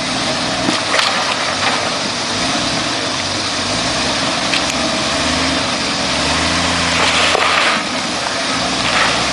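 Toyota FJ40 Land Cruiser engine running at low speed as the truck crawls over boulders, its note rising for a couple of seconds about six seconds in, over a steady hiss, with a few sharp clicks.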